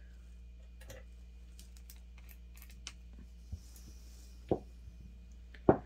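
Light clicks and taps of gel polish bottles and nail swatches being handled on a tabletop, with two sharper knocks, one about four and a half seconds in and a louder one near the end.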